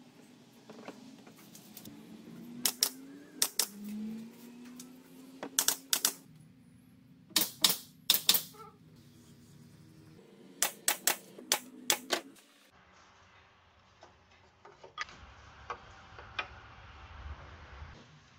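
Pneumatic brad nailer firing into softwood strips: sharp snapping shots in quick clusters of two to four, several times over the first twelve seconds, then only a few faint clicks.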